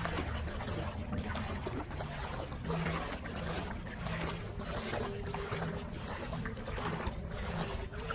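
Steady outdoor noise of wind buffeting the microphone and water trickling, with a low hum underneath.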